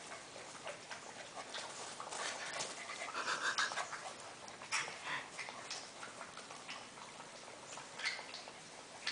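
Six-week-old golden retriever puppies playing and wrestling on grass: panting and small scuffling sounds, with a short, louder puppy cry about three and a half seconds in.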